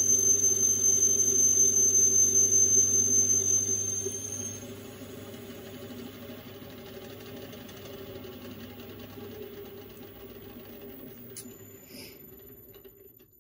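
Metal lathe turning a part down to size, with a steady high-pitched whine over the running motor while the tool cuts. About four seconds in the whine stops and the sound drops to the lathe running more quietly, with a faint click near the end.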